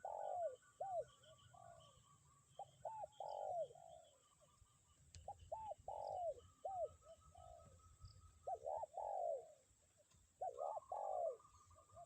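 Spotted dove (tekukur) decoy bird cooing its song phrase about every two to three seconds, each phrase a couple of short coos running into a longer drawn-out note, in the single-'kuk' ending style keepers call 'kuk 1'. A smaller bird chatters faintly and steadily in the background.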